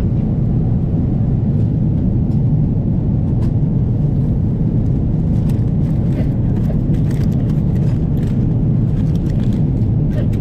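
Steady low rumble of a Boeing 777-300ER's cabin in cruise, engine and airflow noise, with faint clicks and rustles from the plastic meal containers and foil on the tray being handled, mostly in the second half.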